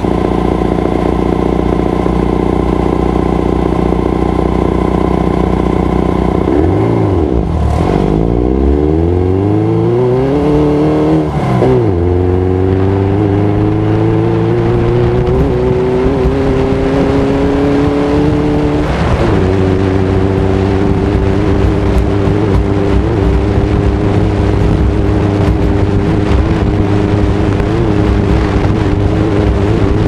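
Air-cooled VW flat-four engine of a Class 11 Baja Bug race car, heard from inside the car. It idles steadily, then revs as the car pulls away about 7 seconds in. Its pitch rises through the gears, with upshifts at about 12 and 19 seconds, and then it runs at a steady speed.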